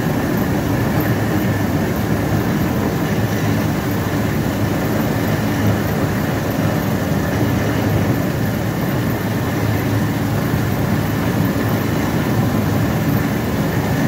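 Industrial soft-brush roller potato washing machine running steadily: its motor and turning brush rollers, with water spraying over the potatoes, make a constant, even machine noise.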